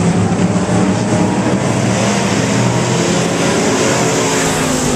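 A pack of pure stock race cars running flat out around a dirt oval: a loud, steady drone of several engines at once, their notes overlapping.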